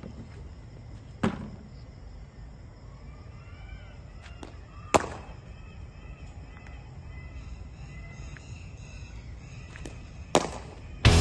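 Cricket ball struck by a cricket bat in defensive shots: three sharp knocks about four seconds apart, the last two each preceded half a second earlier by a lighter tap of the ball pitching on the concrete strip. Music starts right at the end.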